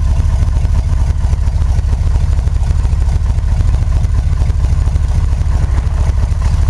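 1977 Chevrolet K10 pickup's engine idling steadily shortly after a cold start, heard from inside the cab.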